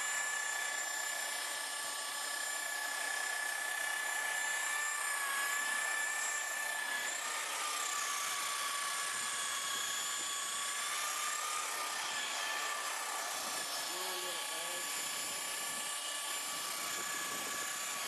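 Electric car polisher (buffer) running steadily with a high-pitched whine, its pitch dipping slightly a few times.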